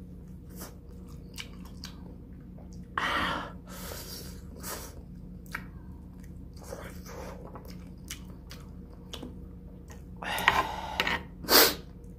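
Eating a fried chicken wing: biting and chewing the meat off the bone, with a run of small wet mouth clicks and smacks and a few louder crunchy bursts, about three seconds in and twice more near the end.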